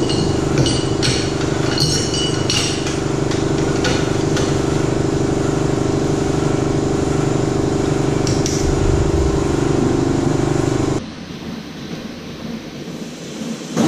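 A machine engine running steadily, with a few light metallic clicks in the first few seconds. It cuts off abruptly about eleven seconds in, leaving a quieter, windy background.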